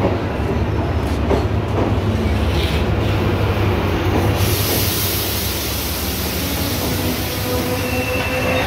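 Sri Lanka Railways Class S8 diesel multiple unit running into the station close by, with a steady low diesel drone and rail noise. A hiss joins in about four seconds in, and a steady whining tone comes in near the end.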